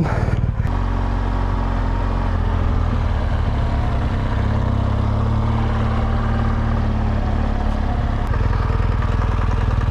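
BMW GS Adventure motorcycle engine running steadily at an even pitch.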